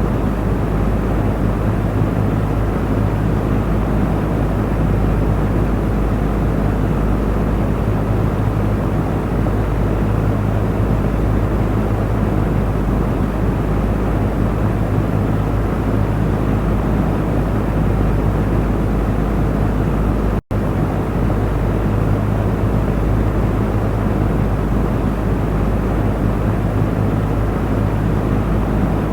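Electric fan running steadily: a constant rush of air with a low motor hum underneath. The sound cuts out for an instant about two-thirds of the way through.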